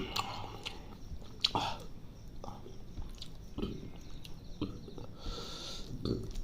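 Close-miked chewing of chicken liver curry with rice: soft wet mouth clicks and smacks at irregular intervals, with a short hissing sound about five seconds in.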